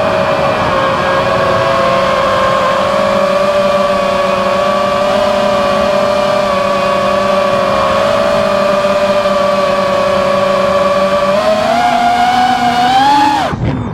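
FPV racing quadcopter's brushless motors whining in flight, a steady high hum that climbs in pitch near the end as the throttle goes up, then cuts out briefly.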